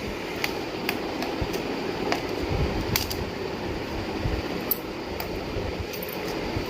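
Screwdriver working the screws out of the bottom cover of a Lenovo IdeaPad 320 laptop: scattered, irregular light clicks over a steady background hum.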